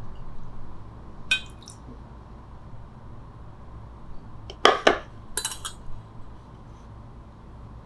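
An enamel mug and a wire pour-over coffee dripper clinking as they are handled: one light clink about a second in, two sharp clinks shortly before five seconds, then a quick cluster of small rattling clinks.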